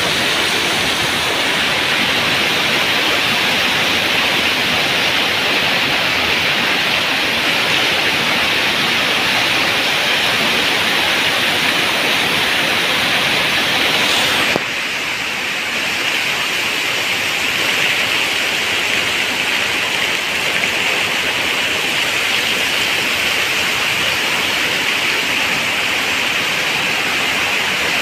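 Heavy rain pouring onto standing flood water: a dense, steady hiss that drops slightly in level about halfway through.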